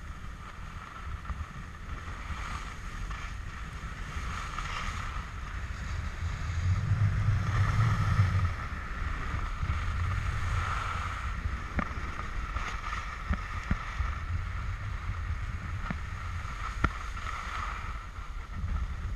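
Wind buffeting an action camera's microphone at skiing speed, with the hiss and scrape of skis running over groomed snow. The rumble swells for a moment about seven seconds in, and a few sharp clicks come through later.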